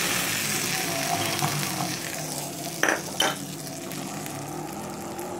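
Hot tempering oil with mustard seeds, urad dal and curry leaves sizzling on top of coconut chutney, just poured from a small tempering pan. The sizzle is loudest at first and dies down over a few seconds. There are two sharp clinks about three seconds in.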